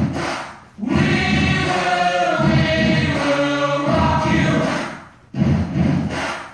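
Background music with a choir singing sustained phrases, broken by short pauses.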